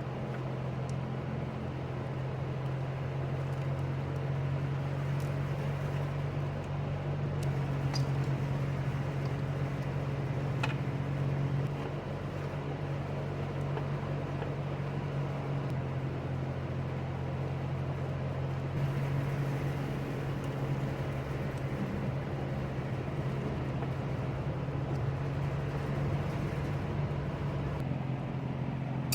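2011 Toyota Tacoma's engine idling steadily, with a cylinder 4 misfire that has persisted after a new ignition coil and spark plug; it is running to test whether the misfire follows the suspect fuel injector, now swapped into cylinder 3. A couple of faint clicks sound over the idle.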